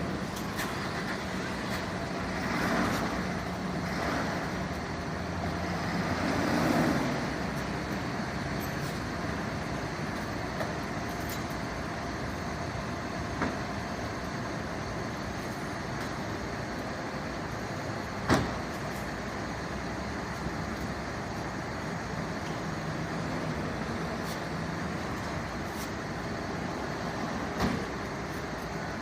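Steady vehicle engine and road-traffic noise, with swells of passing vehicles in the first several seconds. A few sharp knocks stand out, the loudest about 18 seconds in.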